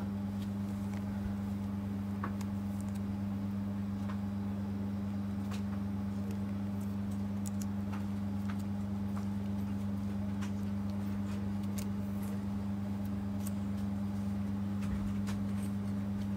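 A steady low hum at an even level, with faint scattered clicks and rustles of trading cards being handled and slid into plastic sleeves and holders.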